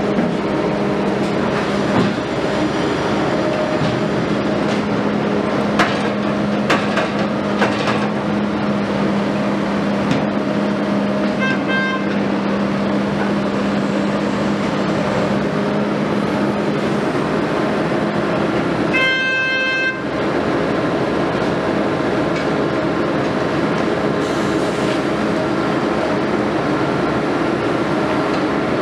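Liebherr A 904 C Litronic wheeled excavator running steadily under load as it digs and swings its bucket, with a steady hum from its diesel engine and hydraulics and a few sharp knocks in the first eight seconds. A short faint beep comes at about twelve seconds, and a louder horn-like tone lasting about a second comes about two-thirds of the way through.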